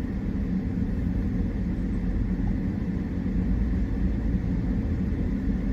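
Steady low rumble of road and engine noise inside a car in traffic, as picked up by a dashcam.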